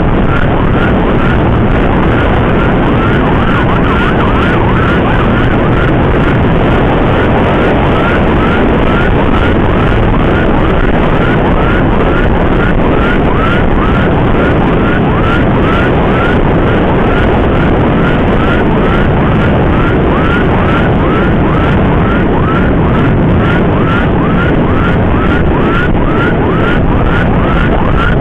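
An emergency siren in fast yelp, short rising whoops about twice a second, over loud, steady road and wind rush from a moving motorcycle.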